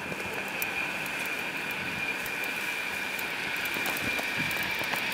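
Jet engines of a McDonnell Douglas MD-11F freighter on its landing roll-out on a wet runway, a steady high whine over a rumbling roar that grows slowly louder toward the end.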